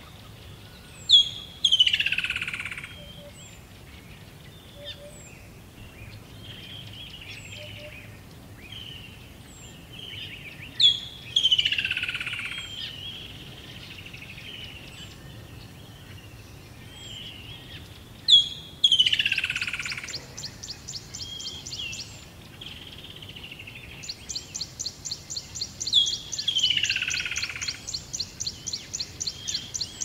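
Birdsong: a loud call of a sharp high note followed by a long falling sweep, repeated four times about every seven to eight seconds, with softer chirps in between. In the second half, a fast, even pulsing trill of about five pulses a second joins in.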